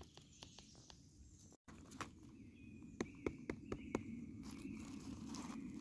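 Footsteps on the forest floor, with scattered sharp snaps and crackles of twigs and leaf litter underfoot, most of them a few seconds in.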